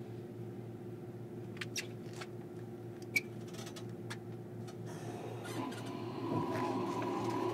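Inside a JR Kyushu 305 series electric train car: a steady low equipment hum with a few light clicks while the train stands, then about five seconds in a steady whine and rising running noise as the train starts to move.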